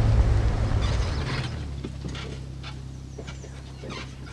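Chevrolet TrailBlazer SUV towing a small cabin trailer over rough grass, its engine rumble easing off about a second in as it slows to a stop, with scattered clicks and creaks from the trailer and hitch.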